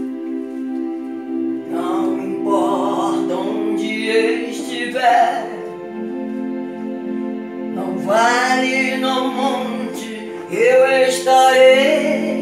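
Electronic home keyboard holding sustained chords while a woman sings a worship song over it with vibrato. She sings two phrases, the first starting about two seconds in and the second about eight seconds in.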